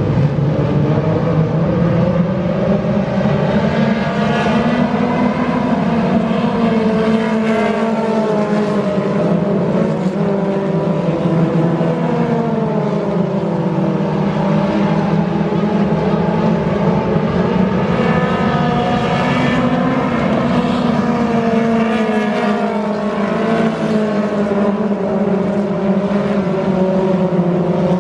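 Thunder Car class stock cars racing on a dirt oval: several engines running at once, their pitch rising and falling as the cars accelerate and lift around the track.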